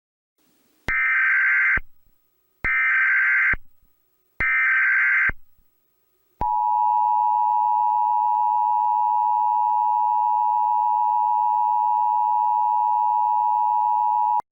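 Emergency Alert System SAME header: three short bursts of digital data tones, each just under a second long. About a second later comes the EAS two-tone attention signal, 853 and 960 Hz sounded together, a steady tone held about eight seconds that cuts off abruptly. It marks the start of an emergency alert broadcast.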